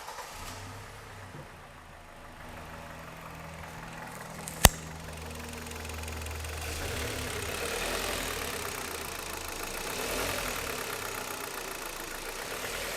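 Kia Cerato's G4KD 2.0-litre four-cylinder engine running, its level rising and falling a little, with one sharp click a little over four seconds in. It is being listened to for a knock on throttle changes, which is audible but judged not serious.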